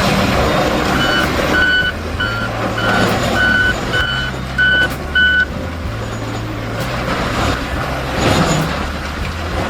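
Heavy machine's engine running with a reversing alarm beeping about eight times, a beep roughly every half second, starting about a second in and stopping about halfway through.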